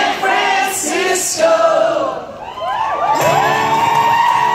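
A theatre audience singing a line together, then cheering and whooping. The band's music comes in with a held note about three seconds in.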